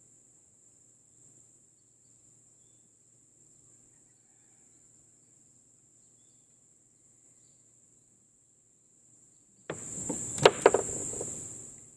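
Steady high-pitched chorus of crickets and other insects. Near the end a loud burst of noise lasting about two seconds, with two sharp knocks in it, cuts across the chorus.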